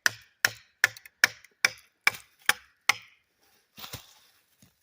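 Eight quick, evenly spaced knocks of wood on wood, about two and a half a second: a baton hammering whittled beech splitting wedges into a split beech log. The knocking stops about three seconds in, followed by a brief rustle of the wood.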